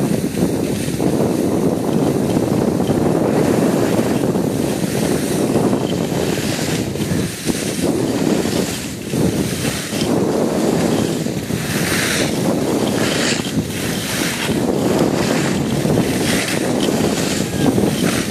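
Wind buffeting a phone's microphone while skiing downhill, a steady low rumble. In the second half, skis hiss and scrape over packed snow in repeated surges about once a second.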